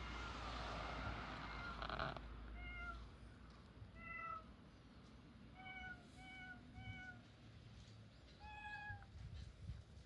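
Short recorded cat meows played as notes on a cat-meow piano app, about seven of them at differing pitches, including three nearly identical ones in quick succession near the middle. The first two seconds hold a louder rustling noise with a low hum, ending in a sharp click.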